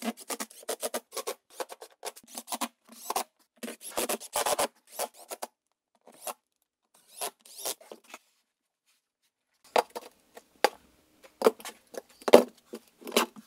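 Irregular short scrapes, rubs and clicks of hand work on a shower pan and plywood subfloor, with a few sharper knocks near the end.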